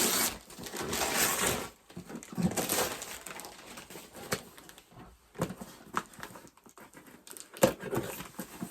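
A cardboard box being opened by hand: rustling and scraping of cardboard and packaging, with scattered knocks and clicks.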